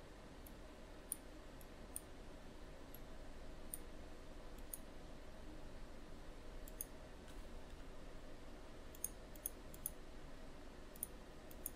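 Computer mouse clicking, about a dozen single clicks spaced unevenly, over a faint steady background hum.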